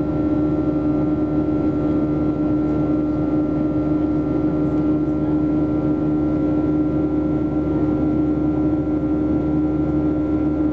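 Boeing 737-800's CFM56-7B turbofan engines heard from inside the cabin over the wing: a steady drone with a strong even hum and a few higher steady tones over a rush of air noise.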